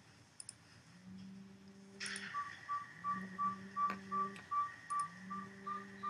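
Recording of a northern saw-whet owl's tooting song: a steady run of short, evenly spaced whistled toots, about three a second, starting about two seconds in.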